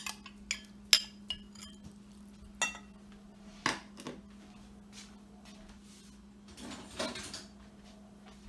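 Metal spoon clinking against a glass salad bowl: a run of sharp clinks, then a longer scrape about seven seconds in, over a steady low hum.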